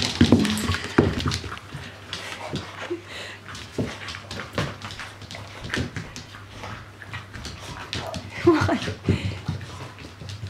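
Two Kooikerhondje puppies eating dry kibble from stainless steel bowls: steady crunching and clinks of kibble against the metal. The bowls knock on the wooden floor as they are set down at the start, and a puppy gives a brief whimper about eight and a half seconds in.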